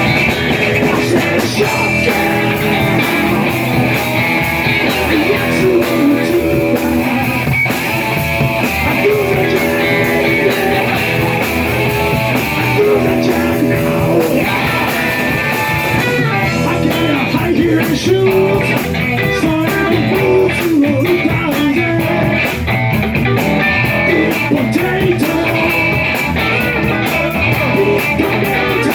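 A rock and roll band playing live and loud, with the guitar to the fore.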